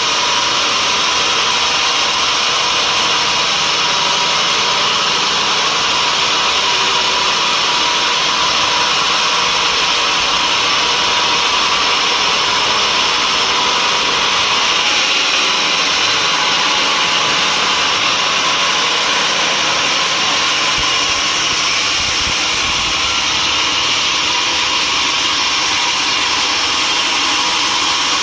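Sawmill saw running with a loud, steady, high-pitched noise that never breaks.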